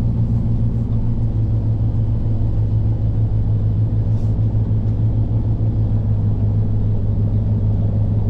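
PACCAR MX13 diesel engine with a full delete and straight pipes, running steadily at a constant low speed with an even, deep drone.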